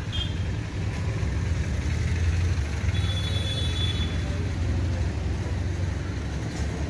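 Steady low rumble of outdoor background noise, with a faint thin high tone for about a second three seconds in.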